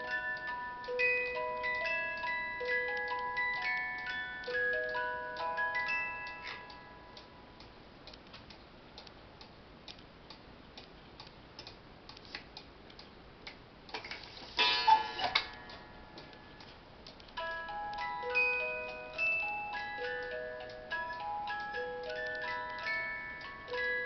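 Carved wooden cuckoo clock ticking steadily while its music box plays a tune. The tune stops about seven seconds in, leaving only the ticking. Midway there is a clatter as the clock's hands are turned by hand, and the music box starts up again a few seconds later.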